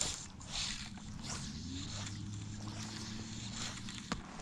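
A low steady motor hum comes in after about a second and a half, with a few brief hissing swishes and a sharp click near the end.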